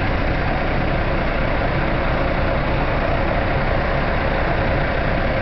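Steady, unchanging low rumbling noise with a hiss above it.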